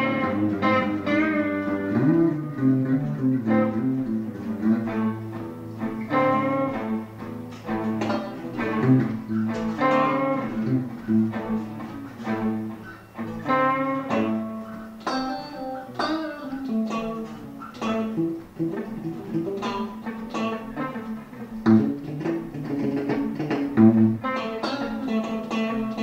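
Live guitar jam in a rock and roll style: an electric guitar through a small combo amp and an acoustic guitar playing together, with picked notes that fade one after another over steady low chords.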